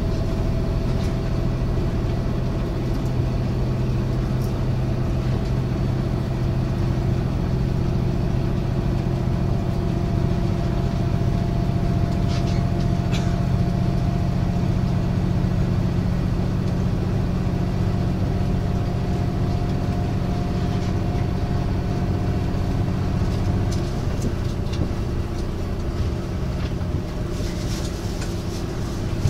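Running sound of a KiHa 182-501 diesel railcar heard inside its passenger saloon: the car's high-output DML30HSJ diesel engine drones steadily under the floor over the rumble of the wheels on the track. Towards the end the engine note changes and eases off.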